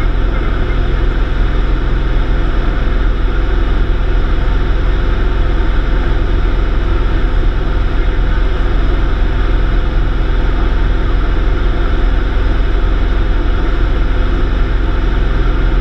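Light aircraft's engine and propeller droning steadily in flight, heard from inside the cabin.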